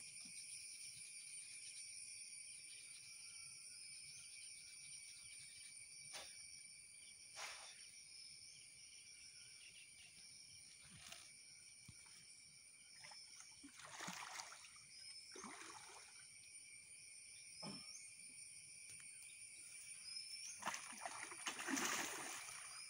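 A hooked fish thrashing and splashing at the water's surface near the bank, a few times mid-way and loudest near the end. Under it runs a steady high insect drone with a few short rising chirps.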